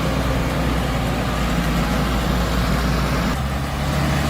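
Heavy vehicle's engine running steadily, its note changing about three and a half seconds in.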